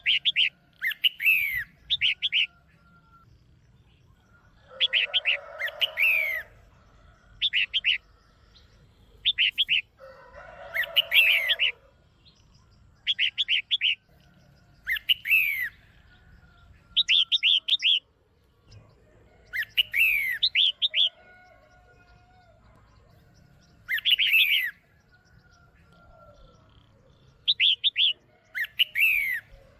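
Female red-whiskered bulbul calling: short bursts of quick chirps and falling whistled notes, repeated every two to three seconds. Twice, about five and ten seconds in, a burst is joined by a rougher, lower rasping sound.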